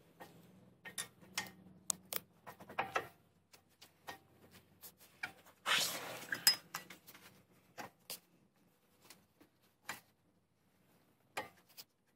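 Metal brake pads and shims clicking and clinking against a brake caliper as gloved hands push them into place. There is a louder stretch of scraping and rustling about six seconds in.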